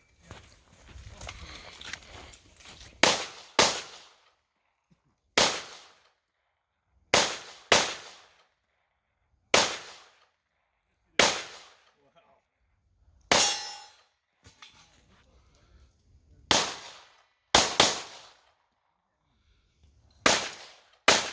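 Pistol shots fired one at a time at an irregular pace, about a dozen, mostly a second or two apart with a few quick pairs; one shot just past the middle comes with a ringing tone.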